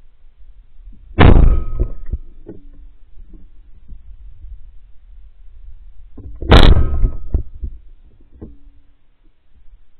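Two 12-bore shotgun shots about five seconds apart, fired at woodpigeons and recorded from a camera mounted on the gun barrel. Each shot is a sudden, very loud crack that clips, followed by a short tail.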